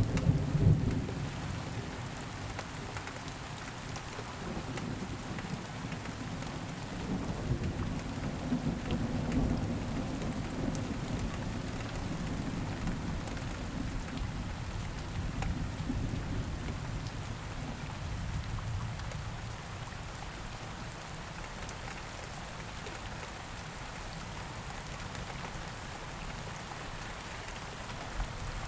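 Steady rain falling, a continuous soft hiss of drops. Low rumbling swells rise and fade a few times in the first half and die away later.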